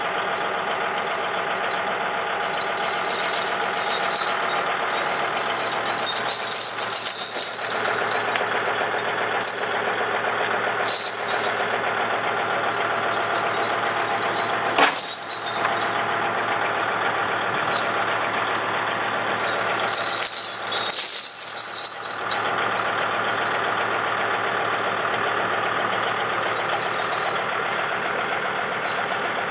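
Kubota tractor's diesel engine idling steadily, with several short bursts of metal tire chains clinking and rattling as they are handled.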